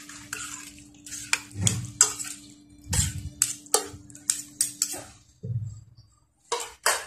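Spoons tossing seasoned minced pork in a stainless steel frying pan, with repeated clinks and scrapes against the metal and a few duller thuds. A steady low hum runs underneath and stops about five seconds in.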